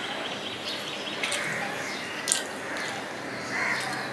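Close-miked chewing and mouth sounds of a person eating rice and curry by hand, with two sharp clicks about a second apart, the second the loudest.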